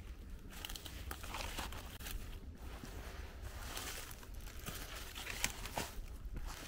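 Footsteps crunching and scuffing on a hiking trail in irregular bursts of crackle.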